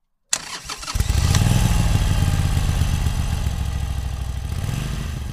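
Motorcycle engine starting up, then running steadily with an even low pulsing that slowly gets quieter.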